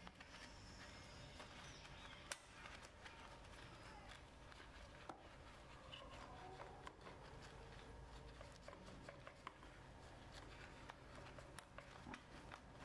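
Faint, scattered clicks and taps of gloved hands tugging a sealant-stuck rubber timing belt off its toothed pulley, with one sharper click about two seconds in.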